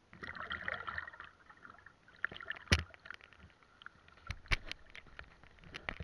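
Sea water sloshing and lapping against a camera held at the water's surface, with a rush of splashing in the first second. A few sharp knocks and taps follow, the loudest about halfway through.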